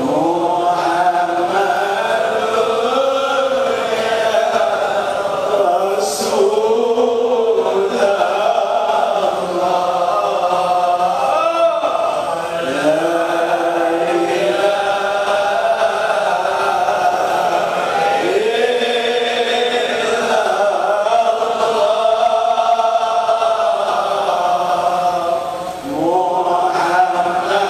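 A group of men chanting Sufi dhikr (zikir) together in long melodic phrases, the chant dipping briefly between phrases, about every six to twelve seconds.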